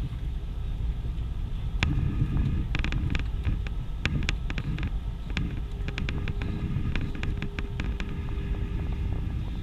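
Steady low rumble inside the cabin of an IndiGo Airbus A320 rolling on the ground after landing. From about two seconds in until about eight seconds, a scatter of sharp clicks and rattles sounds over the rumble.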